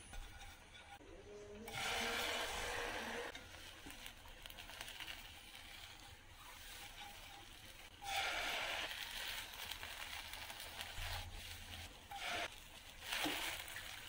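Beaten egg mixed with chopped vegetables sizzling as it is poured into a hot nonstick frying pan, laying the next layer of a Korean rolled omelette. The sizzle comes briefly about two seconds in, and again more strongly from about eight seconds in.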